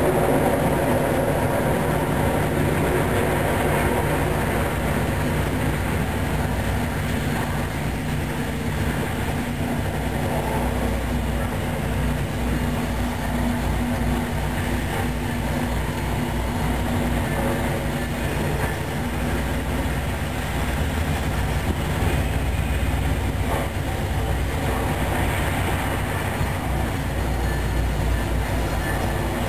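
Train passing close by: a diesel locomotive engine running steadily, with continuous noise from steel wheels on the rails.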